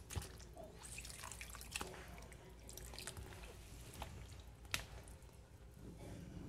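Faint water splashing and dripping as a hand swishes chicken pieces and lime halves around in a glass bowl of water. Small scattered splashes, with one sharper click near the end.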